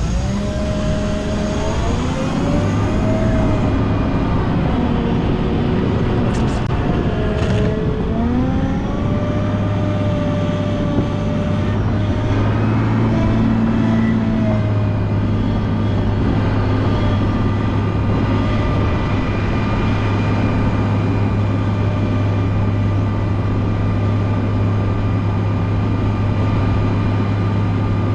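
Volvo L90H wheel loader's diesel engine running under load while plowing snow, a steady low drone with a whining tone that rises and falls over the first half, then holds at a steady pitch.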